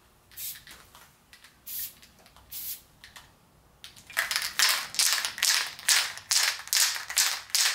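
Aerosol spray paint can: a few short hisses of spray about a second apart. About four seconds in comes a faster, louder run of sharp bursts, roughly three a second.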